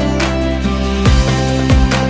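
Background music: sustained synth and bass notes with a steady beat.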